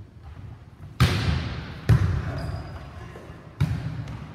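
A volleyball struck three times during a rally in a large gym hall: sharp smacks about a second in, about a second later, and again near the end, each trailing off in the hall's echo.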